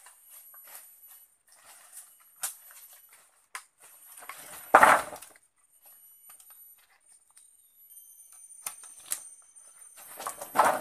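Wooden poles clattering as a carried bundle is set down onto a pile about five seconds in, with scattered knocks of poles against each other before and after, and a louder cluster of knocks near the end. A steady high-pitched insect drone runs underneath.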